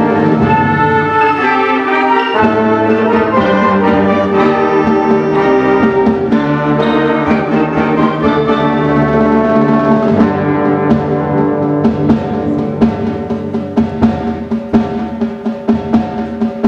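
High school concert band playing a wind-band piece: full sustained chords with brass for about the first ten seconds, then a lighter texture with repeated percussion strikes over a held low note.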